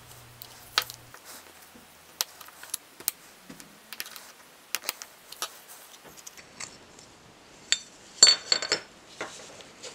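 Flat screwdriver prying up the bent tabs of a small sheet-steel engine breather cover: a run of sharp metal clicks and scrapes. A louder cluster of clinks comes near the end as the two halves come apart.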